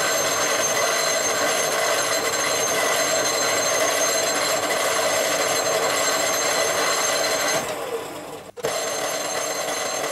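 Small metal lathe running with a steady, ringing whine from its motor and gears while a thread is cut on the workpiece with a die. The sound starts abruptly, and about eight and a half seconds in it drops out for an instant, then resumes.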